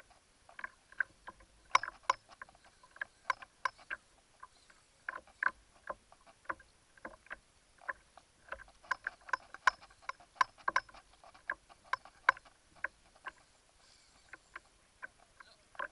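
Small waves slapping against the kayak's plastic hull: irregular sharp slaps and knocks, a few a second, varying in strength.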